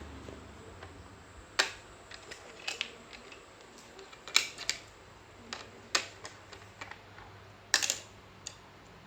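Irregular sharp clicks and taps of small tools and electronic parts being handled on a workbench during circuit-board repair, with a few louder clicks among quieter ones.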